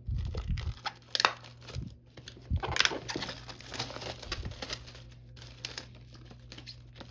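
Packaging wrap on a keyboard box crinkling and tearing in irregular rustles and sharp crackles as it is pulled off by hand.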